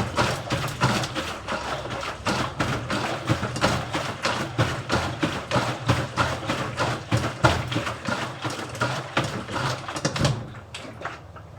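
Hand-cranked washing machine drum being turned: water and clothes slosh and knock inside the plastic drum in a fast, even rhythm of about three to four strokes a second. The cranking stops about ten seconds in.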